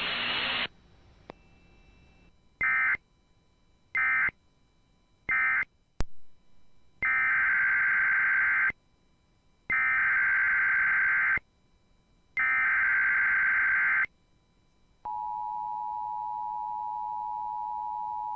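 Emergency Alert System data bursts and attention signal. First come three short buzzing SAME data chirps, the end-of-message code of the previous alert. After a click, three longer SAME header bursts follow about a second apart, and then the steady two-tone EAS attention signal sounds for about four seconds.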